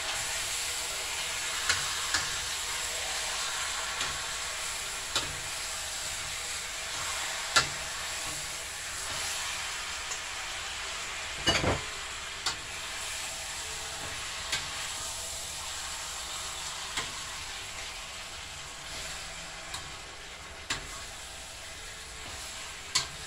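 Chicken backs sizzling in hot oil and curry in a stainless steel pan: a steady frying hiss that slowly dies down. It is broken by occasional sharp clinks of a utensil against the pan as the pieces are turned, with one louder clatter near the middle.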